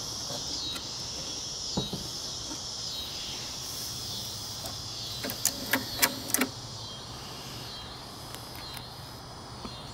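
Steady chirring of insects in the background, with a single knock about two seconds in and a quick run of five or six sharp clicks and knocks a little past the middle.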